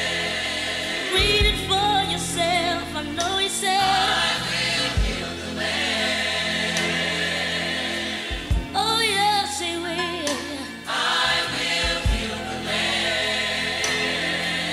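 Gospel choir singing over a band, with a steady bass line and a deep low beat every three to four seconds.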